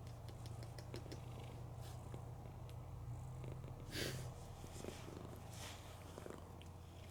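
Domestic cat purring steadily in a low, continuous rumble, with a brief louder burst of noise about four seconds in.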